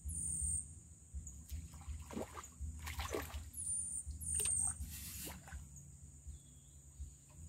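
A hooked pacu splashing and thrashing at the surface as it is pulled in on a bamboo pole, in irregular bursts, the loudest about two to three seconds and five seconds in. A steady high insect drone and a few bird chirps go on behind.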